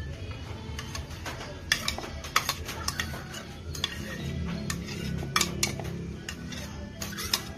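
Metal utensil clinking and scraping against a small ceramic bowl as food is scraped off it, a string of irregular sharp clinks.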